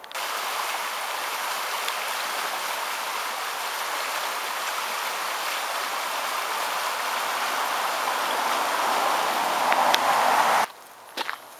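Shallow creek running over stones: a steady rush of flowing water that grows a little louder toward the end, then cuts off suddenly.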